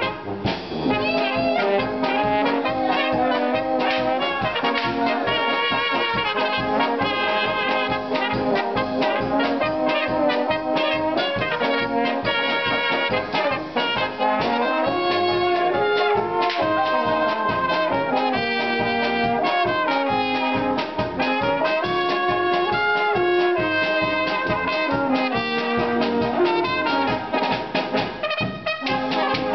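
Brass band playing a tune with a steady beat: two trumpets lead the melody over tubas, baritone horns and drums.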